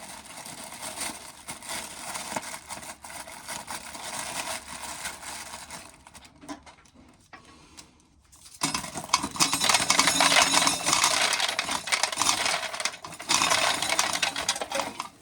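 Corn sheller stripping dry kernels off ears of corn: a dense rattle of kernels pouring and clattering. It eases off for a couple of seconds around the middle, then comes back louder for the second half.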